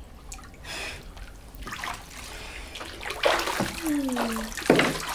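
Bathwater sloshing and splashing as a child moves in a bathtub, with several separate splashes, the loudest near the end.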